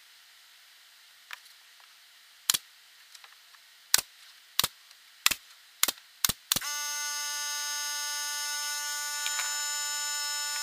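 A pneumatic brad nailer fires about eight sharp shots, driving brads into the plywood cabinet panels. About two-thirds of the way through, the small air compressor kicks on to refill its tank and runs with a steady hum.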